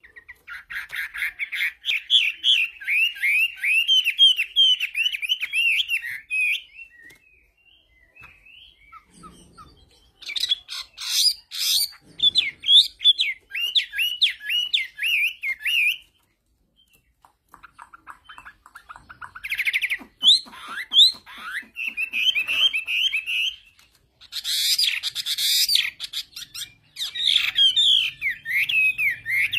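Caged Chinese hwamei (hoạ mi) singing: several bouts of rapid, rising-and-falling whistled phrases a few seconds long, with short pauses between, and a louder, harsher run of notes a little before the end.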